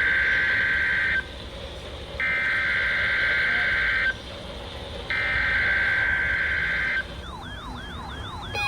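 NOAA Weather Radio SAME header: three buzzy digital data bursts of about two seconds each, with short gaps, the station's required weekly test. About seven seconds in, an electronic alert siren set off by the header starts, wavering up and down several times a second.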